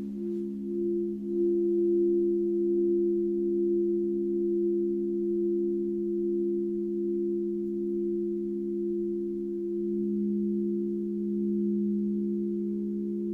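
Several singing bowls ringing together in held, pure tones with a slow wavering pulse; the highest of them swells about a second in.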